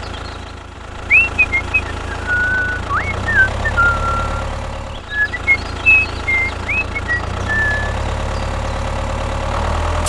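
Tractor engine running steadily at idle, a low even hum. High whistled chirps, short rising and falling notes, sound over it from about a second in, and are the loudest sounds.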